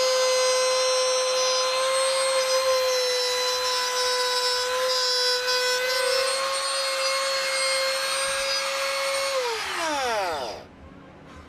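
Compact trim router running at full speed with a steady high whine while cutting a circle in MDF board on a circle-cutting jig. About nine seconds in it is switched off and the whine falls in pitch as the motor spins down.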